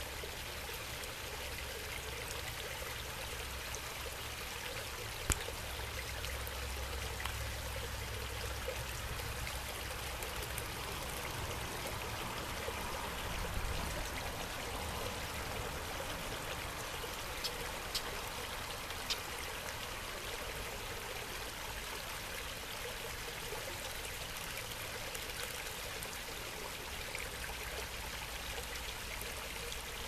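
Steady running, trickling water in a rock-lined pond, with a few short sharp ticks scattered through.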